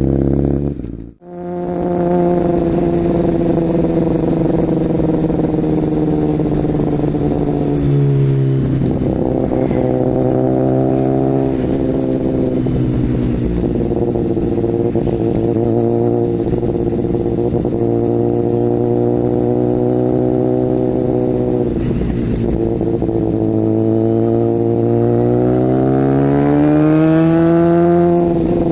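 Kawasaki ZX-10R inline-four with an aftermarket Mivv exhaust under way, running at fairly steady revs with a few gear changes, then revs climbing steadily near the end. The sound cuts out for an instant about a second in.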